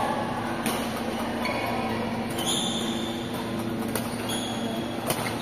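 Badminton hall room sound between points: a steady low hum, a few sharp clicks, and a brief high squeak about two and a half seconds in.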